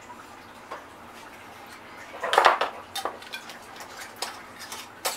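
Glass canning jars and their metal lids clinking and knocking as they are handled, with a louder clatter about two and a half seconds in and a few sharp clicks after.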